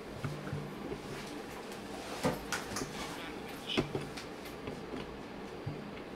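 Scattered light knocks and clicks from handling at a lectern, picked up by its microphones over room tone. The two loudest come about two seconds in and just under four seconds in.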